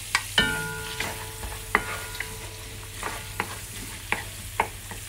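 Minced garlic sizzling in melted butter and oil in a cast-iron pot, with a spoon scraping and stirring it. A few sharp knocks of the spoon against the pot stand out; the first, about half a second in, rings on for over a second.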